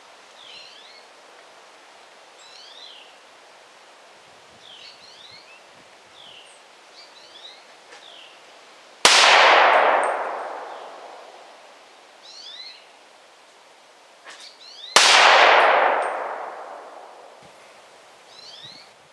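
Two unsuppressed gunshots from a .300 Blackout with a 10.5-inch barrel, about six seconds apart, each very loud and followed by a long echo dying away over about two seconds. Birds chirp faintly between the shots.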